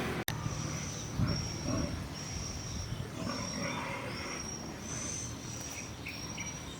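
Outdoor animal calls: a high-pitched note, steady in pitch, repeating about once a second over a low background rumble.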